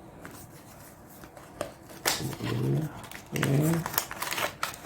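An electric anti-snoring device and its packaging being handled, with a string of sharp clicks and crinkles. A man gives two short murmurs about two and a half and three and a half seconds in.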